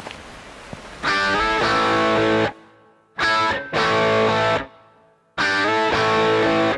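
Music starts about a second in: a distorted electric guitar plays a stop-start riff, three loud phrases of chords each broken off by a short silence.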